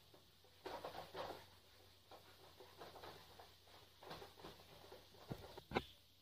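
Whiteboard eraser wiping across the board in a series of faint rubbing strokes, followed near the end by two sharp clicks.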